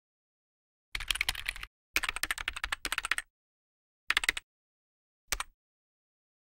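Typing sound effect: rapid clicks of a computer keyboard in four short runs, the first two longest and the last a brief few keystrokes, with dead silence between the runs.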